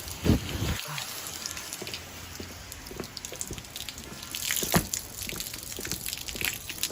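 Garden hose spluttering out a weak, uneven trickle of water, with a couple of knocks among it. The flow is held back, most likely by ice in the hose.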